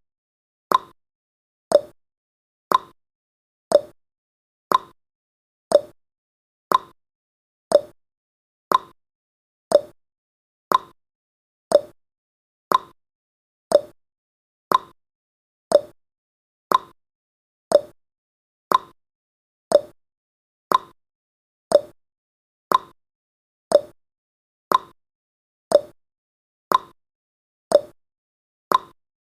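Countdown timer's ticking sound effect: one short tick a second, alternating higher and lower like a clock's tick-tock.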